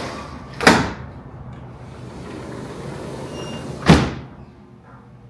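Sliding door knocking sharply as it is opened, then again about three seconds later as it is shut, over a hiss of outdoor city traffic that drops away after the second knock.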